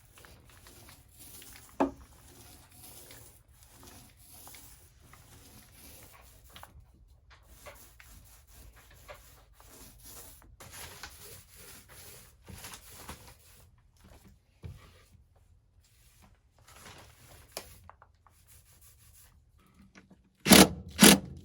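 Paint roller rolling and rubbing over a wooden surface, a faint, irregular scratchy sound with a sharp click about two seconds in. Two short, loud bursts come near the end.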